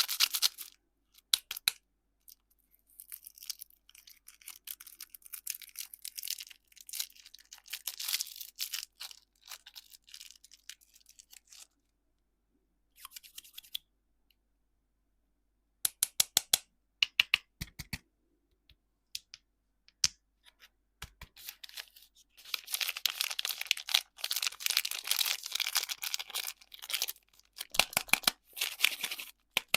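Plastic candy wrapping being crinkled and torn open, in two long stretches of dense crackling with short runs of sharp clicks and taps between them.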